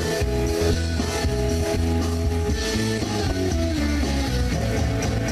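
Background rock music with electric guitar and a heavy bass line.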